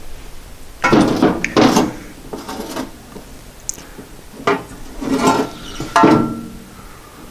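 Metal car parts and hand tools clanking and scraping as a VW Cabriolet's shift linkage bracket is worked loose, in several short bouts of knocks and rattles.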